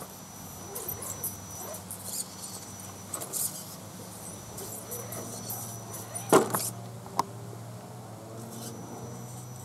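Electric RC rock crawler creeping over rocks: a thin high motor whine that comes and goes with the throttle over a low steady hum, and tyres scrabbling and clicking on the stones. A sharp knock about six seconds in and a smaller one about a second later.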